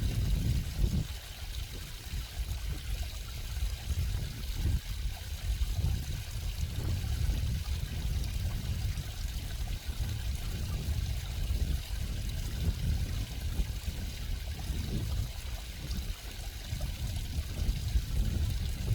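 Stream water trickling and flowing steadily, with small uneven swells in level.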